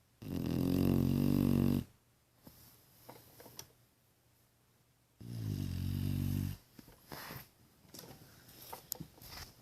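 Labrador retriever snoring in her sleep: two loud snores, each about a second and a half long and roughly four seconds apart, with quieter crackling breaths after each.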